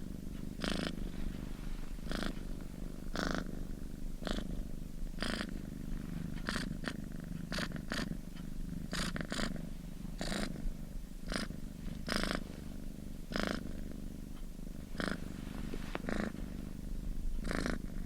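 Chartreux cat purring steadily close up, a continuous low rumble with a brief, breathier surge roughly once a second as it breathes in and out.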